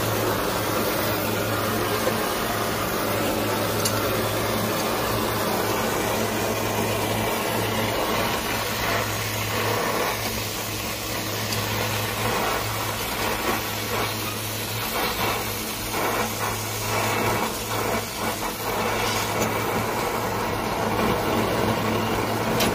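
Brazing torch flame hissing steadily against a copper refrigerant line, heating the brazed joint at the TX valve to unsweat it. Irregular knocking and scraping partway through.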